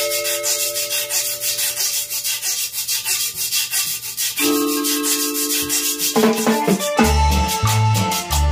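Cumbia band intro: a metal güiro scraped in a fast, steady rhythm over held chords that change twice. About 7 s in, bass guitar and drums come in with a steady beat.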